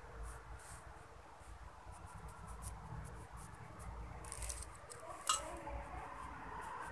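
Faint handling sounds as an electric motor's stator, copper windings on a steel lamination stack, is turned over in the hands beside its aluminium housing: light rubbing and small clicks, with one sharper click a little past five seconds in.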